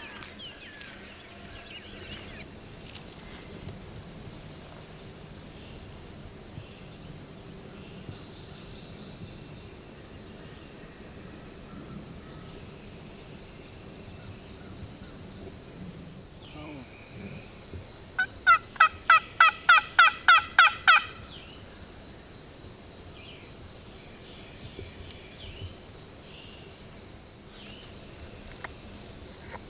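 A loud run of about eleven wild turkey yelps, each note falling in pitch, about four a second, near the middle. A steady high-pitched whine runs in the background.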